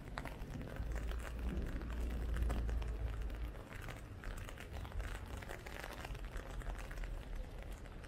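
Heavy hail falling, a dense, irregular crackle of small pellet impacts, with a low rumble between about one and three and a half seconds in.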